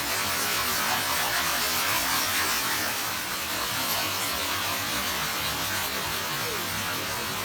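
Waterfall: a steady rush of falling water, a continuous hiss with no rhythm or breaks.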